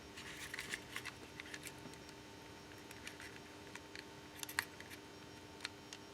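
Faint scratching and small plastic clicks of a flat screwdriver prying at the retaining clips of a car window switch panel, with a sharper click about four and a half seconds in.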